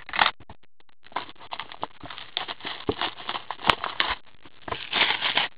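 Crinkling and tearing of the plastic shrink-wrap on a sealed cardboard trading-card box as it is unwrapped and opened by hand: a dense, irregular run of crackles, taps and light scrapes.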